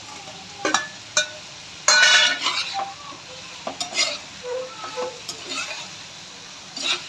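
A ladle stirring and scraping chicken in a sizzling kadhai, knocking sharply against the pan several times, the loudest cluster about two seconds in, over a steady sizzle of the frying chicken and sauce.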